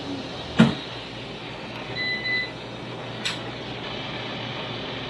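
Brazing torch flame hissing steadily as it heats a copper refrigerant line joint, with a sharp knock about half a second in and a fainter click about three seconds in.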